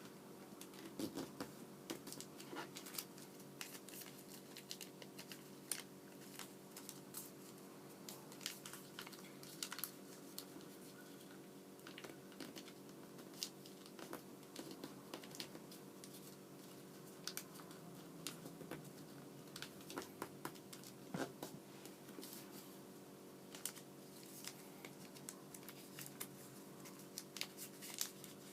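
Sheet of origami paper being handled, folded and creased by hand: faint, irregular crinkles and small taps throughout.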